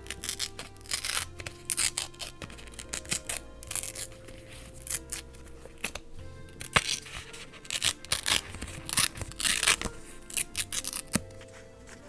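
Paper being worked by hand: a string of short, crisp snips and rustles of paper at an irregular pace, over background music with sustained notes.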